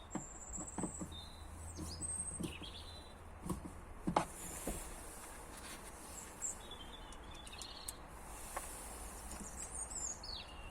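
Small birds chirping in short high calls, with one falling call near the end. Scattered light clicks and knocks sound throughout, the loudest about four seconds in, over a steady low hum.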